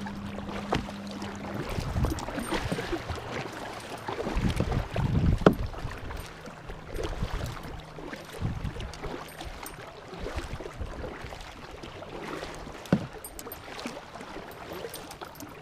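Ambient sound of a fishing kayak on the water: a water and wind hiss with scattered small knocks and clicks, two of them sharper, near the middle and near the end, and a faint steady low hum at times.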